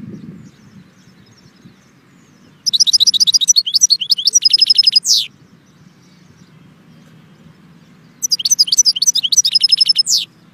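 European goldfinch singing two song phrases, one about two and a half seconds in and one near the end, each a rapid run of high chirping notes that closes on a short held note and a quick downward slide.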